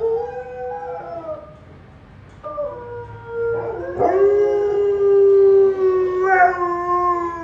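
Alaskan malamute howling: a howl trails off in the first second, then after a short pause a long howl begins, climbs in pitch and loudness about four seconds in, and holds.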